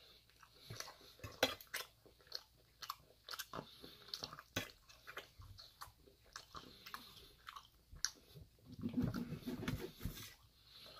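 Close-miked chewing and mouth sounds of a person eating steak, with many short wet clicks. Near the end a steak knife saws through the meat against a stainless steel pan, making a louder stretch.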